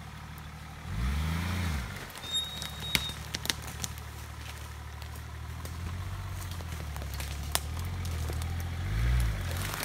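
Nissan Patrol's engine running at low revs as the 4x4 crawls through forest undergrowth, with two brief rises and falls in revs, about a second in and near the end. Sharp snaps and cracks of twigs and branches breaking against the truck come in between.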